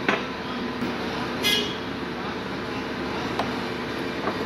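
A steady mechanical hum with a few light clicks, and a short high-pitched toot about one and a half seconds in.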